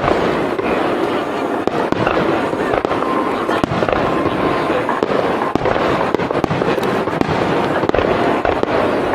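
Aerial firework shells bursting in rapid succession in a starmine barrage, with booms and crackle overlapping into a continuous din, and people's voices underneath.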